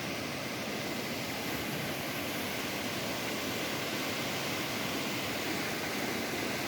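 Mountain river rushing, a steady even roar of flowing water.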